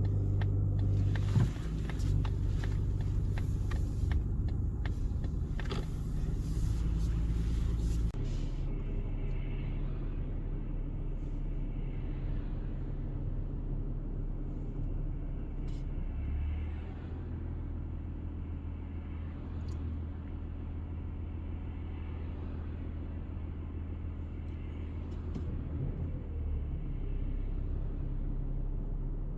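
Inside the cabin of a Mazda CX-60 XD at low speed: the 3.3-litre inline-six diesel and the road give a steady low drone, which changes pitch about 8 seconds and 16 seconds in. Through the first eight seconds there is also a scattered crackle.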